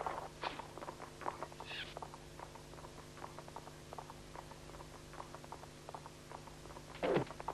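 Horse galloping: quick, irregular hoofbeats, with a brief high squeak about two seconds in and a loud cry that falls in pitch near the end.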